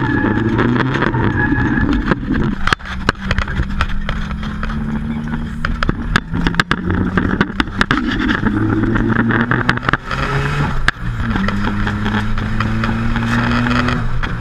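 Nissan 200SX (S14) engine running hard at high, steady revs while the car drifts, with tyre squeal and sharp rattles and knocks in the cabin. The revs drop briefly twice, about three seconds in and again about ten seconds in, then climb back.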